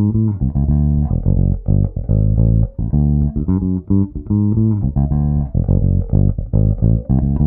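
Nordstrand Acinonyx short-scale electric bass played fingerstyle: a groove of plucked notes, some held and some cut short.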